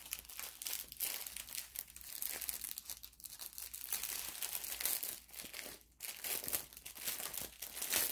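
Plastic packaging of diamond painting drills crinkling on and off as it is handled and opened, with short pauses.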